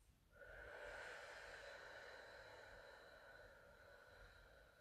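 A woman's long, faint breath out through the lips, a steady blowing sound starting about a third of a second in and slowly fading over some four seconds. It is a deliberately lengthened exhale, held in a yoga stretch.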